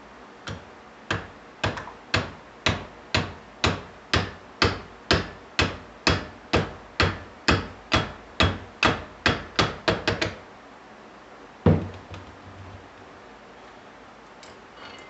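Hammer striking an iron bar used as a drift, driving a new bushing into a VW Voyage starter motor: about twenty even blows at roughly two a second, then after a short pause one harder single blow.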